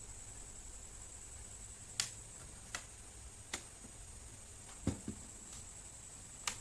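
Scattered sharp plastic clicks and light knocks from hands and tools working on a laptop being taken apart, about six or seven irregular clicks with one deeper knock midway.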